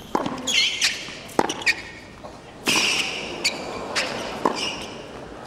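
Tennis rally on a hard court: sharp racket strikes and ball bounces about once a second, with sneakers squeaking on the court as the players run.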